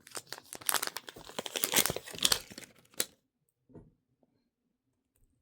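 Crinkly plastic packaging of a Mini Brands toy being handled and torn open by hand, in a dense crackle that stops about three seconds in.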